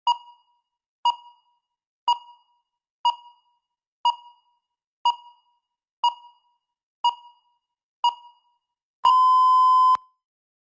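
Countdown timer beeping: nine short, fading beeps a second apart, then one long steady beep of about a second as the timer reaches zero, marking that the time is up.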